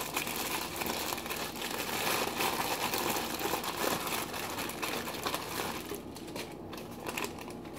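Plastic deli bag crinkling as it is handled and opened, a dense crackly rustle that thins out about six seconds in.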